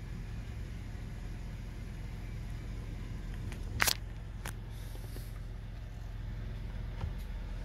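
Steady low rumble of a Mercedes E-Class (W212) car running, heard from inside. About four seconds in come two sharp clicks, half a second apart; the first is the louder.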